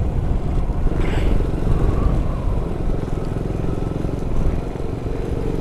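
Motorcycle engine running steadily as the bike is ridden along a paved road, a continuous low rumble.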